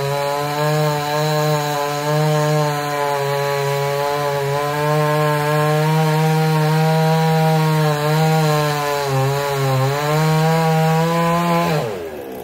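Gas chainsaw running at high revs while cutting a log, its pitch wavering slightly as it bites. Near the end the throttle is released and the engine winds down.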